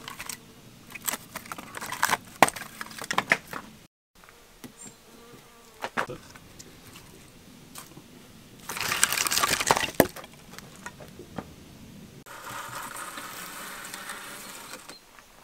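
Split oak firewood knocking and clattering as pieces are lifted off a woodpile and loaded into a brick oven. A louder rushing noise lasts about a second around nine seconds in, and a steady buzz runs for a few seconds near the end.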